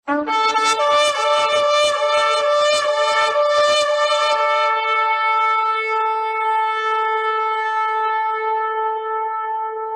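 Shofar being blown: a fast run of short broken blasts, about three or four a second, then from about four and a half seconds in one long held note.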